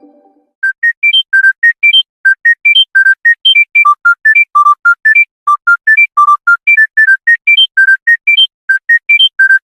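Electronic phone ringtone: a fast melody of short, clear beeps, about four notes a second, played in quick rising runs. It starts about half a second in, just as the low tail of the previous tone dies away.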